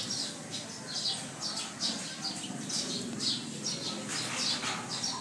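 Small bird chirping repeatedly: short high chirps, two or three a second, in a steady rhythm.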